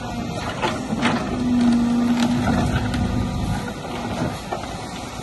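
CAT hydraulic excavator working as its bucket digs down into gravel: the diesel engine runs steadily under load, with a steady low tone for about a second and a half near the middle and scattered crunches and clicks of stone.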